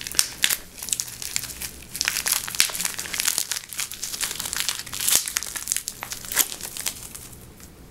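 Clear plastic wrap crinkling as it is peeled and pulled off a metal lightsaber coupler by hand, in an irregular run of crackles that dies away near the end.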